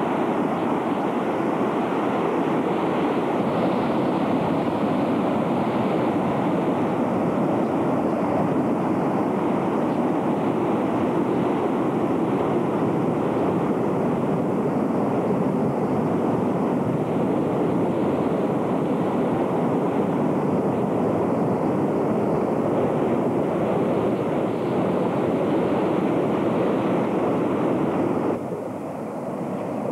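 Muddy floodwater of a stream in flash flood rushing fast past its banks, a steady loud rush of water that gets quieter near the end.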